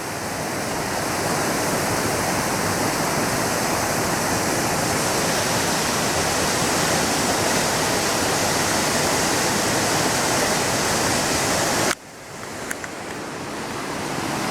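Waterfall rushing: a steady, even roar of falling water that drops off suddenly about twelve seconds in and then swells back up.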